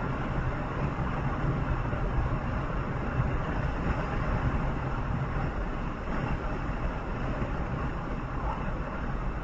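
Steady running noise of a road vehicle travelling on the highway: a low engine hum under a rush of tyre and wind noise. The low hum eases a little about five and a half seconds in.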